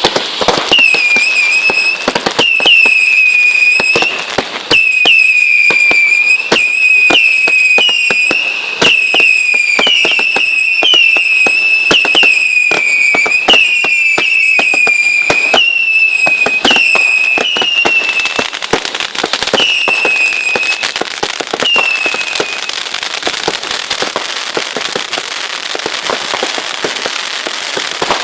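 Fireworks going off: a rapid series of shrill whistlers, each about a second long, over a constant stream of sharp cracks and pops. The whistles die out about three quarters of the way through, leaving only crackling and bangs.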